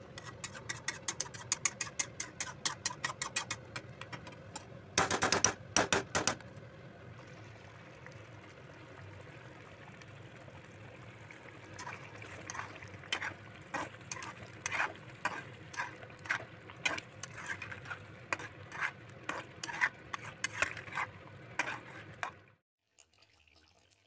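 Slotted spatula stirring thick butter chicken gravy in a metal pan: a run of quick clicks and scrapes against the pan, a louder burst of knocks about five seconds in, and more irregular clicks and pops later as the sauce simmers. The sound cuts off suddenly near the end.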